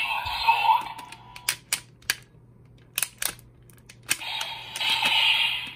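Plastic clicks and snaps from toy parts being fitted together, with short bursts of tinny electronic sound from a toy's small speaker at the start and again about four seconds in.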